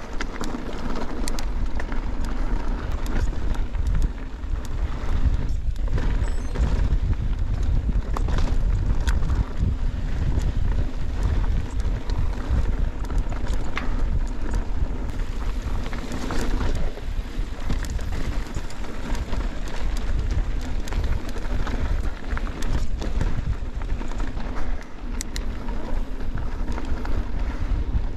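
Mountain bike ride heard through an action camera's microphone: steady wind rumble on the mic, with tyres rolling over a rocky dirt trail and scattered clicks and rattles from the bike.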